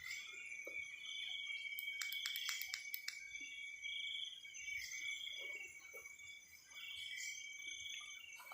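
Crickets and other insects chirring steadily at several high pitches, with a few faint clicks about two to three seconds in.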